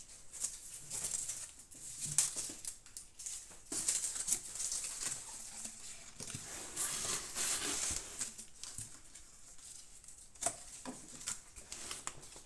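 A strip of brown paper being twisted and crumpled by hand, rustling and crinkling in irregular bursts with small crackles.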